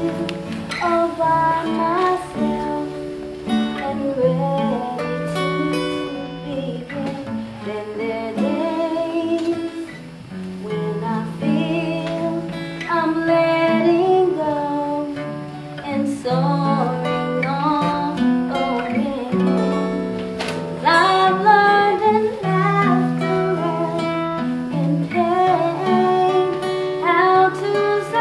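Song with acoustic guitar and a sung melody.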